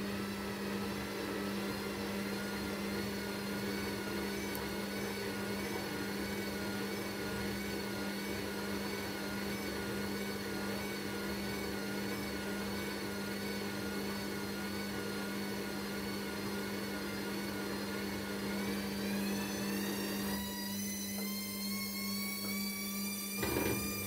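Hisense front-loading washing machine running: a steady low hum under a wavering motor whine. The whine rises in pitch about three-quarters of the way through, and a brief knock comes just before the end.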